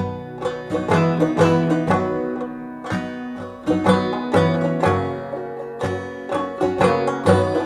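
Background music: acoustic strings picking a steady run of notes.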